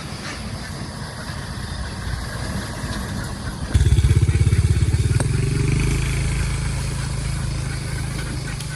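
A motor vehicle's engine running. About four seconds in it suddenly gets louder with a steady low hum, then eases off slowly.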